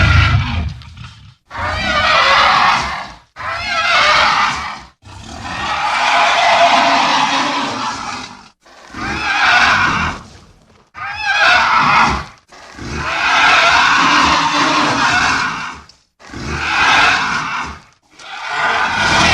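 A run of separate dinosaur roar sound effects, about eight of them one after another, each one to three seconds long with short silent gaps between; a few are longer, stretching to about three seconds.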